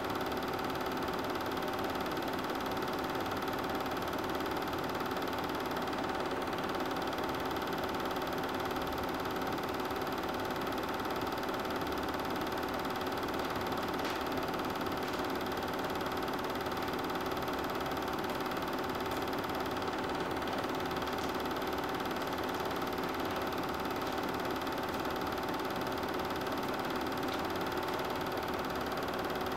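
Super 8 film projector running steadily, a constant mechanical whir with a fixed hum.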